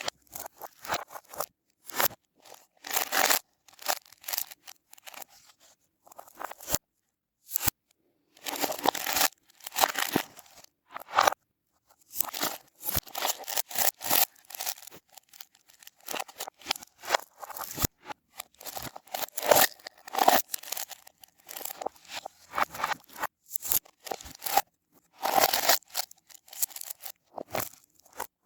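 Hands squeezing and squishing slime balls, making crackling, clicking sounds in irregular bursts with short pauses between them.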